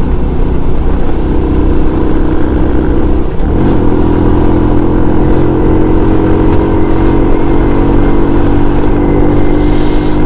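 SYM Bonus 110 motorcycle's single-cylinder four-stroke engine running under way, with wind rushing over the microphone. The engine note breaks briefly about three and a half seconds in, then settles on a steady, slightly higher note.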